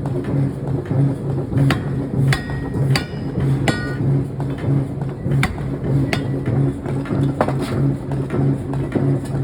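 Pneumatic forging air hammer running with a steady, rhythmic low pounding, and sharp metallic clanks about every second, a few of them ringing briefly.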